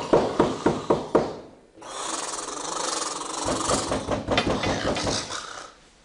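A man snoring loudly: a rattling snore in rapid pulses, a short pause, a hissing breath, then another rattling snore.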